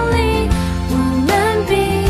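A Mandarin pop ballad with a sung melody over guitar and a steady beat, the drama's closing theme song.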